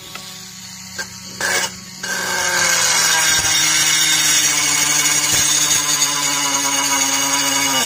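Homemade drill powered by a 1000 kV brushless motor, boring into a wooden plank. It starts about two seconds in and runs with a high whine whose pitch slowly falls, then cuts off suddenly near the end.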